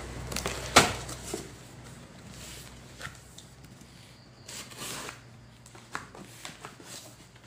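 Parcel packaging being handled and opened: scattered rustles and knocks, with one sharp snap about a second in.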